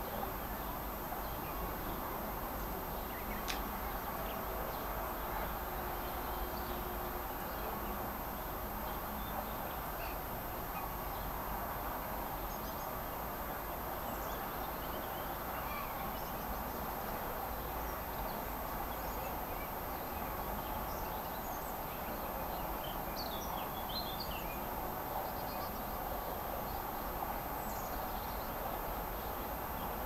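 Outdoor ambience: a steady background rush with scattered small-bird chirps and calls, thickest in a short cluster about two-thirds of the way through.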